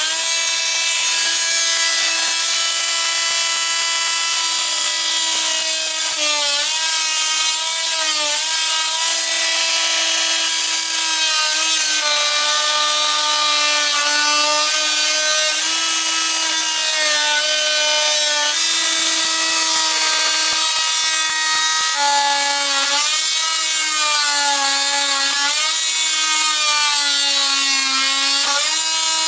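Oscillating multi-tool cutting through a wooden cabinet top with its plunge blade: a loud, steady buzz whose pitch sags and wavers each time the blade is pushed into the wood, most often in the last several seconds.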